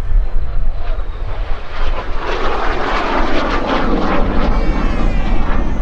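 MiG-17F jet fighter's single Klimov VK-1F turbojet roaring as the jet makes a low pass, swelling about two seconds in and holding loud, its pitch falling near the end as it goes by.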